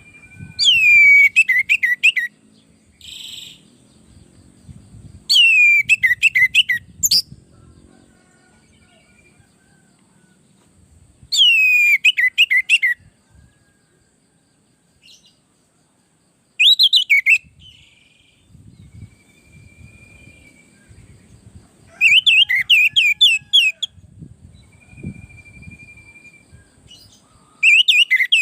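Orange-headed thrush singing in loud, short phrases of rapid whistled notes that sweep downward, about one phrase every five seconds.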